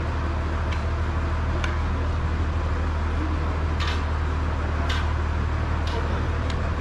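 Steady low machine hum, with sharp clicks and clanks at irregular times over it.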